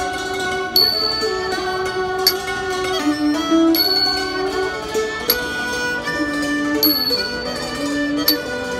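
Thai classical ensemble playing a slow melody on bowed and plucked strings. Small ching hand cymbals keep the beat throughout, alternating a ringing stroke and a damped stroke about every second and a half.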